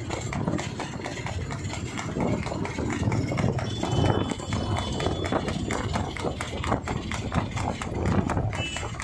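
Horse's hooves clip-clopping on asphalt in a quick, even beat as it pulls a two-wheeled tanga cart at a fast pace, over the steady running of a motorcycle engine keeping pace alongside.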